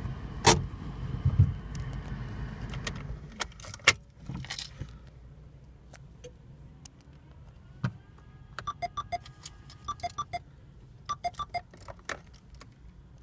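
Inside a car, a low steady engine rumble with a few sharp knocks for the first few seconds, then quieter, with bursts of jangling keys from about eight to twelve seconds in.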